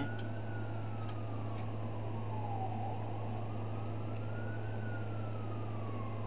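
An emergency vehicle's siren wailing, its pitch rising and falling slowly, one sweep about every four seconds, over a steady low hum.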